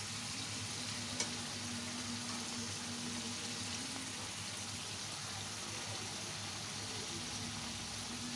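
Rohu fish steaks frying in a thick spice paste in a karahi: a steady sizzle, with one small click about a second in.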